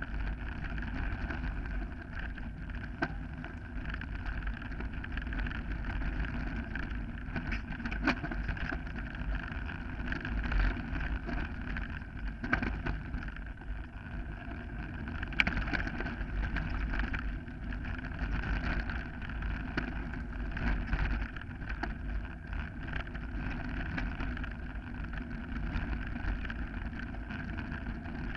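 Mountain bike riding a gravel forest singletrack, recorded from a camera on the bike: a steady rumble of tyres on loose gravel and wind over the microphone, with frequent sharp clicks and knocks as the bike and mount rattle over bumps.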